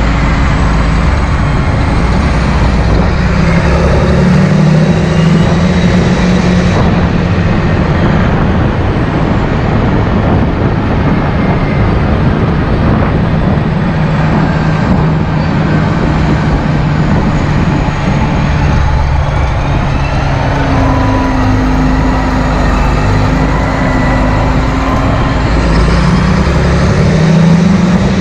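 John Deere 8430 tractor's six-cylinder diesel engine running steadily as the tractor drives along. Its pitch rises a few seconds in and again near the end.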